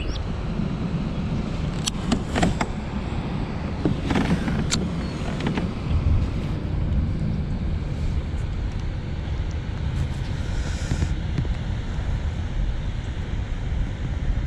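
Wind buffeting the camera microphone: a steady low rumble, with a few sharp clicks in the first five seconds.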